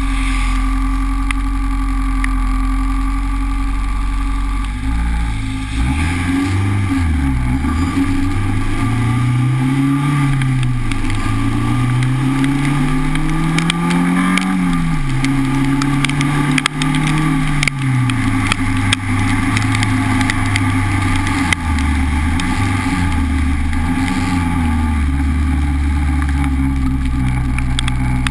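Honda Civic's four-cylinder engine idling steadily, then about five seconds in pulling away with its pitch rising and falling through the gears. It settles back to a steady low hum near the end.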